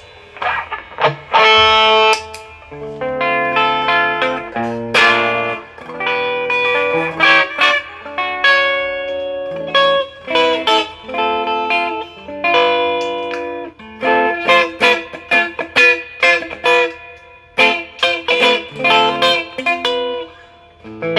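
Gibson R9 Les Paul electric guitar with Wolfetone Marshallheads humbuckers, played through a Marshall DSL-1 amp: a run of picked single notes and chords that ring out, with a couple of short pauses.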